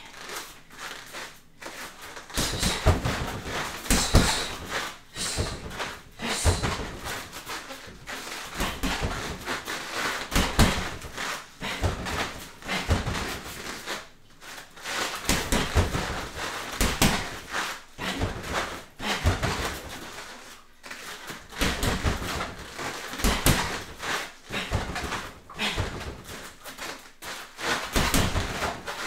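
Irregular thuds and shuffling from a kickboxing combination of punches and knee strikes, with barefoot steps on foam floor mats, coming in quick clusters, with sharp breaths in between.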